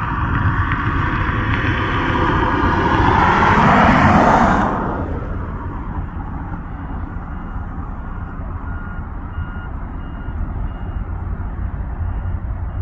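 A road vehicle passes close by, its tyres hissing on the wet road, swelling to a peak about four seconds in with a falling sweep in pitch, then dropping off quickly. Afterwards a steady low rumble remains, with a faint beep repeating a little faster than once a second.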